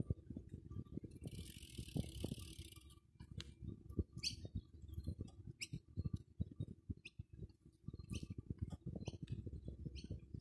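Bicycle rolling over bumpy grass, with a steady run of low knocks and rattles through the handheld camera. Short high bird chirps come several times in the second half, and a brief hiss lasts about two seconds near the start.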